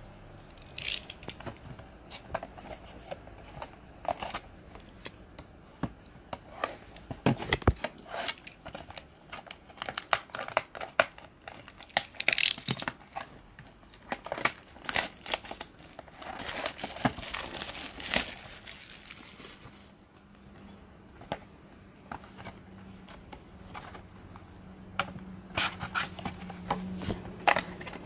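Plastic shrink wrap on a sealed trading-card box being slit with a box cutter and torn off, crinkling and crackling, with scattered clicks and scratches as the box is handled and opened.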